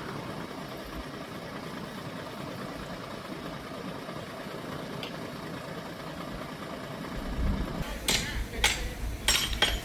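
Diesel engine of heavy earthmoving equipment running steadily; about seven seconds in a deeper rumble comes in, followed by four sharp knocks near the end.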